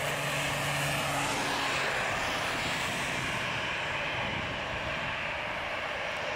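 Airbus A320-214 (CJ Prestige) business jet's CFM56 turbofans running at taxi power as it rolls along the taxiway: a steady jet whine and hiss. The higher hiss drops away a little past halfway.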